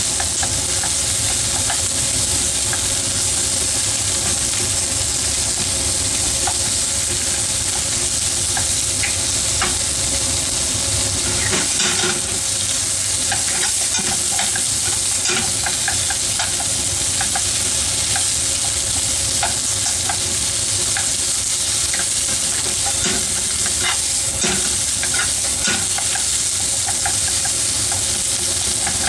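Sliced onions sizzling as they stir-fry in a nonstick frying pan, with a steady hiss and the wooden spatula scraping and clicking against the pan now and then.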